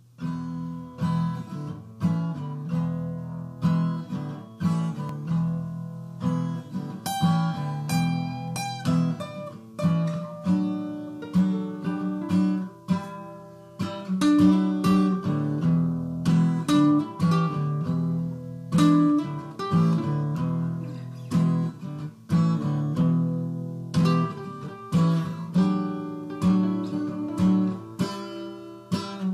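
Acoustic guitar music: a couple of overdubbed acoustic guitar tracks playing together, a steady run of plucked and strummed notes.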